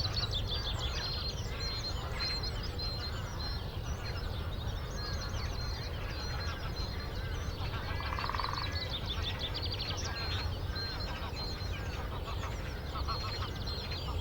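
A chorus of many birds chirping and trilling at once, with one high note repeated evenly through the first half and a short, harsher call about eight seconds in, over a steady low rumble.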